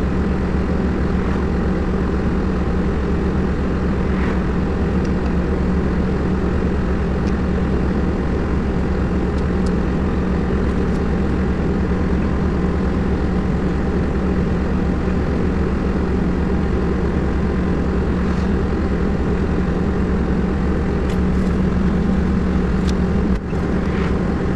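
HEPCO backhoe loader's diesel engine idling steadily with an even low hum, with a few light clicks near the end.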